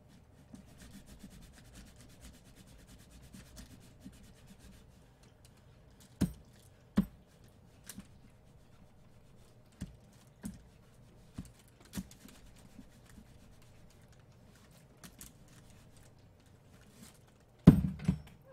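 Clothes iron sliding and rubbing over parchment paper laid on fuse beads on a plastic pegboard, with scattered sharp knocks from about six seconds in. A louder clatter comes near the end.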